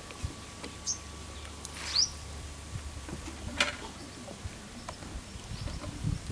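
Scattered light clinks of a steel slotted ladle against an iron kadai, with a bird chirping, a short rising call about two seconds in.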